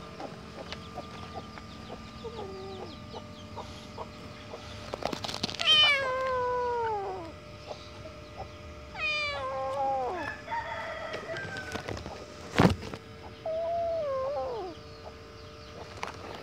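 A kitten meowing repeatedly: several long cries, each falling in pitch, the loudest about six seconds in. These are the distress calls of a frightened, abandoned kitten. A single sharp click sounds about three quarters of the way through.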